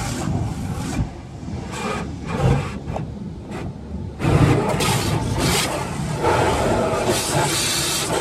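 Automatic car wash spraying water over the car, heard from inside the car as a steady rushing hiss on the windscreen and body. The spray quietens about a second in and comes back louder about four seconds in.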